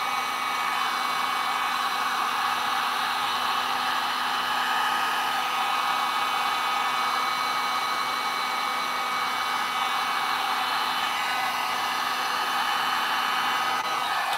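Handheld heat gun blowing steadily: a rush of air with a fan-motor whine, used over wet epoxy resin. It cuts off right at the end.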